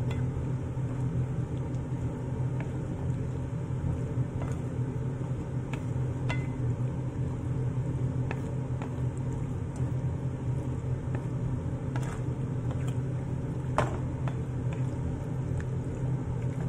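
Stroganoff in a frying pan being stirred: scattered light clicks and taps of the utensil against the pan over a steady low hum, the sharpest tap about 14 seconds in.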